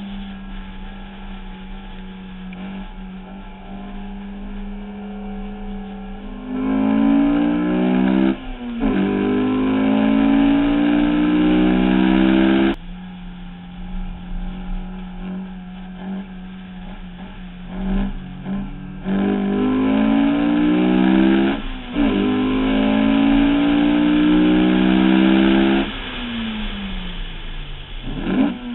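Honda S2000's four-cylinder engine heard from the car on track: steady part-throttle running, then twice under full throttle with revs climbing, a brief drop for an upshift, climbing again, and a sudden lift off the throttle.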